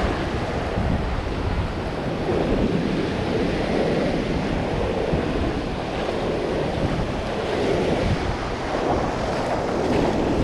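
Ocean surf breaking and washing up the beach, with wind buffeting the microphone in gusts.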